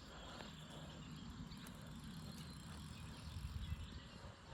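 Faint outdoor background: a low, uneven rumble with a few faint ticks.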